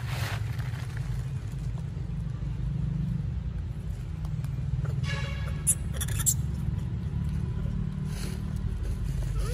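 Outdoor ambience: a steady low rumble, with a short high-pitched call about five seconds in, two sharp clicks just after it, and a brief rising tone near the end.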